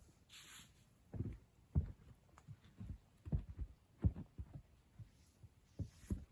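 A series of about eight low, muffled thumps at uneven intervals, some in close pairs, after a brief hiss near the start.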